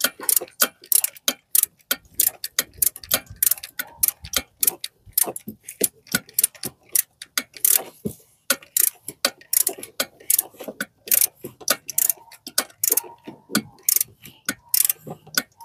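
Hand ratchet with a 12 mm socket clicking, a rapid run of sharp ticks about four a second with brief pauses, as it turns a bolt on the ignition coil bracket into the engine.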